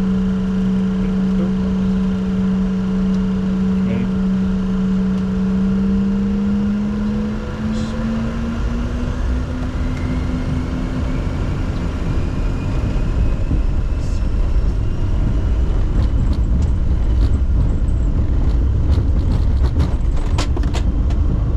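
Inside the cockpit of a Bombardier Challenger 604, the jet's engine tone rises steadily from about a third of the way in as the turbofans spool up. A deepening rumble then builds, with scattered clicks and rattles in the second half, typical of the start of the take-off roll.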